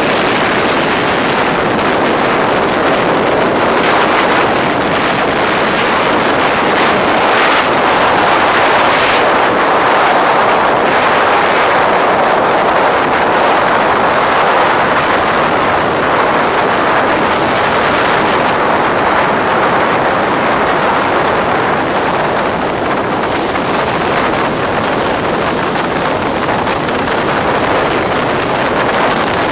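Sea surf rushing steadily against the shore, with wind on the microphone; it swells a little partway through.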